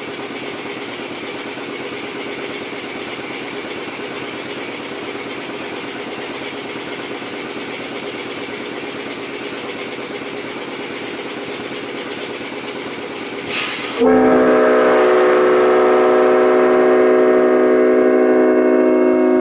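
Air compressor running steadily. About fourteen seconds in, a Leslie S5 five-chime locomotive horn blows on 120 psi air: several steady chime notes sound together in a chord, much louder, and are held to the end.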